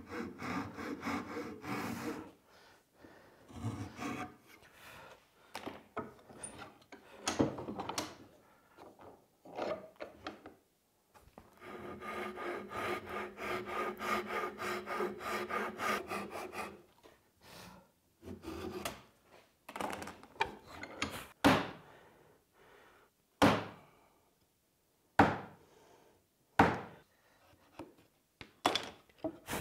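A Japanese-style pull saw cuts the kerfs of a half-lap joint in a hardwood board, making rasping saw strokes. In the second half come several separate sharp wooden knocks, the loudest sounds.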